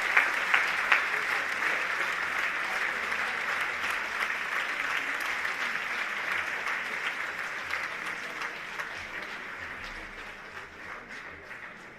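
Theatre audience applauding, a dense patter of many hands clapping that fades steadily.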